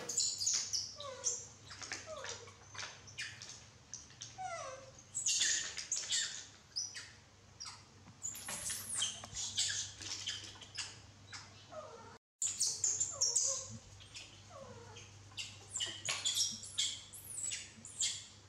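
Baby macaques giving short high squeaks and chirps, some rising and some falling in pitch, mixed with frequent clicks of snail shells and a spoon against plates.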